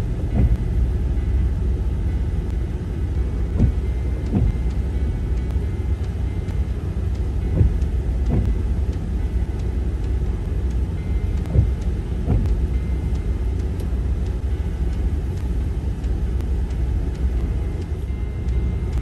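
Off-road vehicle crawling over a rocky trail, heard from inside the cab: a steady low rumble of engine and tyres, broken by a few thumps, mostly in pairs a little under a second apart, as the vehicle jolts over rocks.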